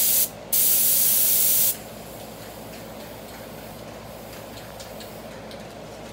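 Aerosol spray-paint can spraying in two hissing bursts: a short one, a brief gap, then one of about a second that stops about two seconds in. A steady low background hum remains after it.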